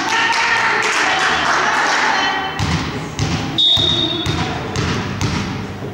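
Volleyball being played in an echoing sports hall: players' voices, several ball and floor thumps, and a short single blast of a referee's whistle just past the middle.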